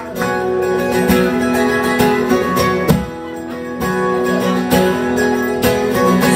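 Acoustic guitar strumming chords in the instrumental introduction of a live song, with strokes about once a second and no singing yet.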